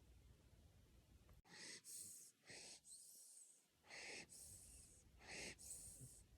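Siberian husky puppy snoring in its sleep: short, snuffly breaths about once a second, starting after a second and a half of near quiet, with a faint nasal whistle on the first few breaths.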